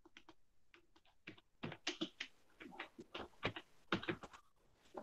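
Typing on a computer keyboard: a quick, irregular run of faint key clicks starting about a second in and stopping near the end.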